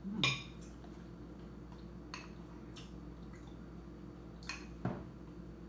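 Eating sounds: a metal spoon clicking and scraping against a glass bowl of chocolate ice cream, with soft wet mouth sounds. The loudest click comes about a quarter second in and rings briefly; a pair of smaller knocks follows near the end.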